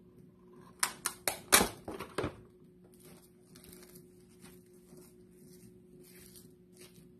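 A quick run of about six sharp clattering knocks from a steel cooking pot being handled on a stainless steel counter, then softer rustles and light taps from the pot and its contents, over a low steady hum.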